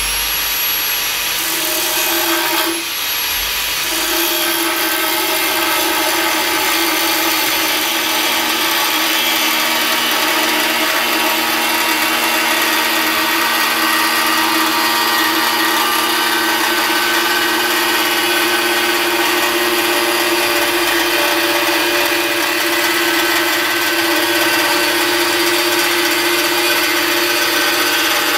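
Handheld angle grinder running steadily as it cuts a straight line through a painted sheet-metal panel, throwing sparks. The sound dips briefly about three seconds in, then carries on evenly.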